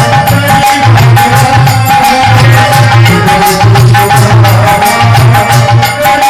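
Loud instrumental passage of a DJ remix of a Hindi devotional song: a heavy bass beat in repeated pulses under dense drum and tabla-like percussion, with a steady high synth note held over it.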